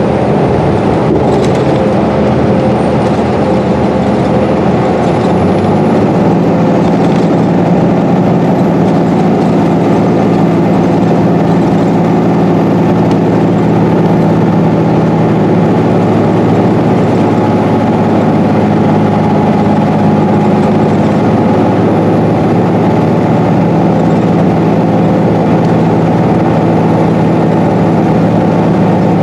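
Cabin noise of a 2012 Gillig diesel-electric hybrid bus running at freeway speed. Its Cummins ISB6.7 diesel and Allison hybrid drive hum steadily under road and tyre noise, and a faint high whine rises slightly about six seconds in.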